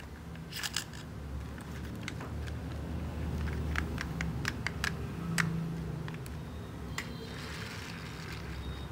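Light plastic clicks and taps as a plastic toy garbage truck is handled and turned over in the hands, over a low steady hum, with a short scraping hiss near the end.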